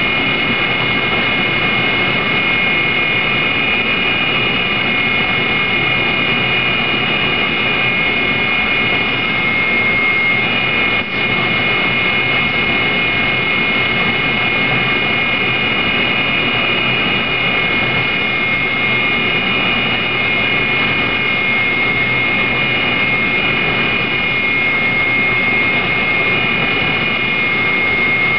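Walter CNC5 saw blade grinder face-grinding the carbide tips of a circular saw blade: a loud, steady high whine over a wash of grinding noise, with a brief dip about eleven seconds in. It is taking extra passes to resize replaced tips to match the rest of the teeth.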